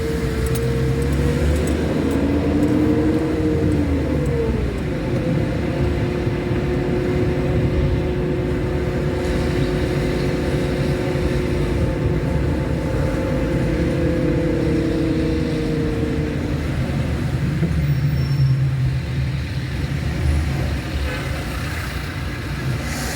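A car driving along a road: steady engine hum and road rumble, the hum shifting a little in pitch in the first few seconds.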